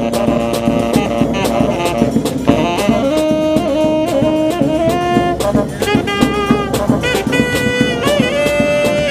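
Brass band playing: saxophone and brass horns hold and trade melody notes over a steady beat from bass drum and snare drum, with higher held notes in the second half.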